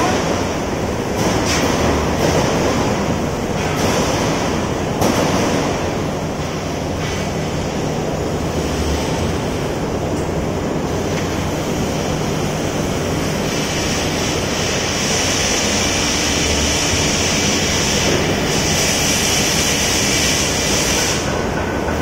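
Loud, steady mechanical noise of a building construction site among steel rebar cages, with a few sharp metal knocks in the first few seconds. A higher hiss grows stronger through the second half.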